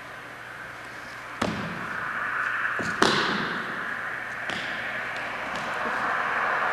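Live experimental noise music: a hissing, droning texture that swells louder, broken by three sharp crashing hits about a second and a half apart, the loudest about three seconds in with a ringing tail that fades.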